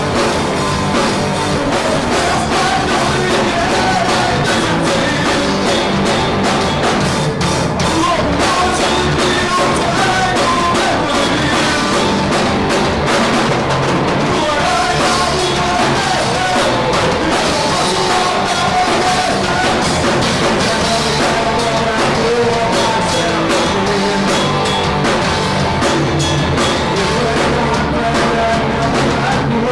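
Live rock band playing loud through the PA: distorted guitar, bass and drum kit, with some singing. It is loud and crowded in sound from being recorded right beside the speakers.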